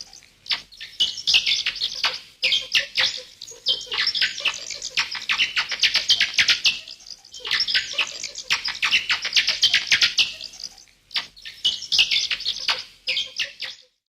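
Rapid, high-pitched chirping calls from an animal, in bursts a second or two long, separated by short pauses, stopping abruptly near the end.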